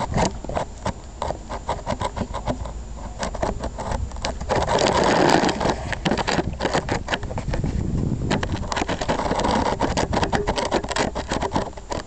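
Close rubbing and rustling on the microphone with rapid irregular clicks, as a dog pushes up against the camera. A louder stretch of rustling comes about halfway through, when its fur brushes the microphone.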